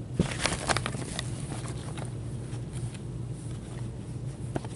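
A run of sharp, light clicks and taps in the first second and a half, then a few scattered fainter clicks, over a steady low hum.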